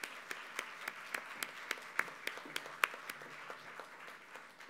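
Audience applauding, the claps thinning out and growing quieter near the end.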